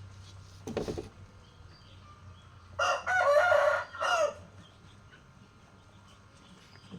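A rooster crowing once, a call of about a second and a half with a short final note. A brief scratchy sound comes about a second in.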